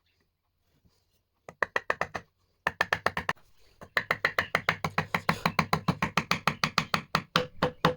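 Rapid knocking on wood, about seven or eight strikes a second. It comes as two short runs, then a long steady run from about halfway through.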